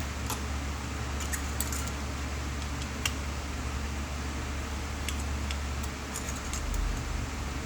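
Scattered light clicks and small metallic taps from small parts and tools being handled during repair work, about eight of them at uneven intervals, the sharpest about three seconds in, over a steady low hum.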